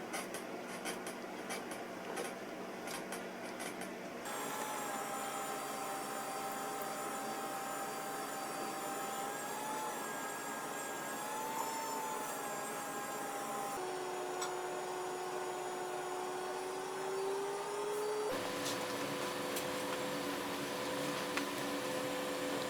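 A small electric motor running with a steady whine that drifts slightly in pitch, its tone shifting abruptly three times.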